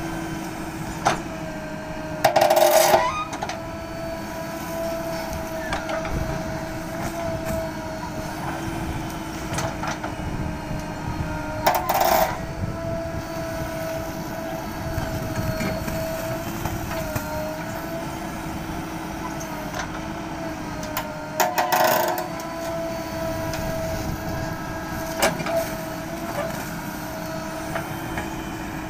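JCB backhoe loader's diesel engine running steadily with a constant whine, working sand out of a river bed. Three brief loud clattering bursts break through, about ten seconds apart.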